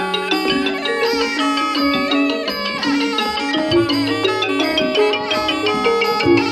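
Traditional Thai ensemble music: reed and melodic percussion instruments playing a quick, busy melody over sustained low notes, with light drumming.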